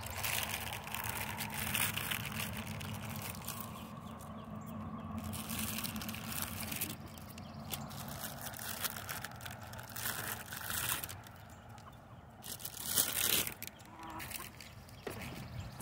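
Chickens clucking softly as they feed on scattered crackers, with frequent short crackling and rustling noises.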